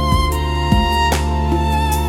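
Slow instrumental background music: a held, wavering violin melody over low sustained notes that change every half second or so.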